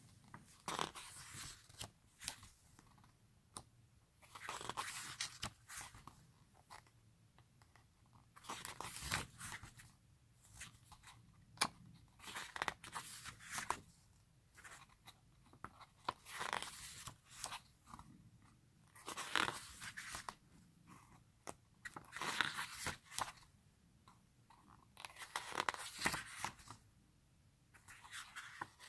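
Pages of a glossy album photo book being turned by hand, one page about every three seconds, each turn a short rustle and flap of stiff paper.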